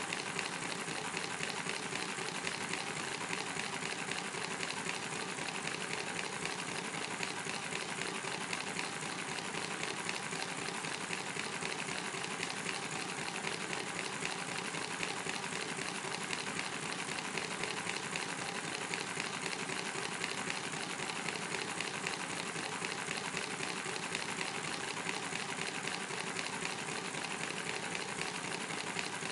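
Handmade miniature W32 engine of 47.5 cc running steadily at speed: a fast, even mechanical clatter.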